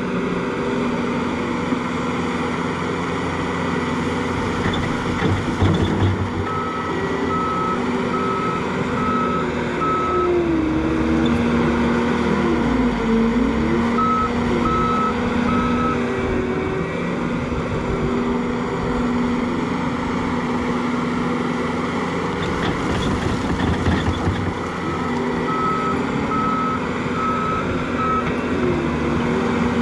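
John Deere compact track loader's diesel engine running under load while it pushes dirt, its note dipping and rising with the work. Its backup alarm beeps in three spells as it reverses.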